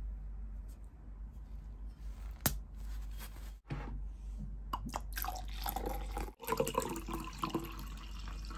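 Fizzy red fruit drink poured from a glass bottle into a glass tumbler, gurgling and fizzing as it fills, after a few sharp clicks of handling the bottle. The pour starts about halfway through.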